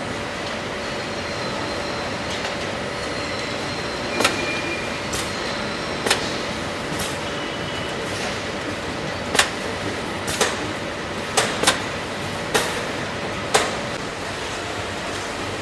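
Steady hum of assembly-plant machinery with a faint held tone, broken from about four seconds in by about ten sharp metallic clacks at irregular spacing, two of them in quick succession near the two-thirds mark.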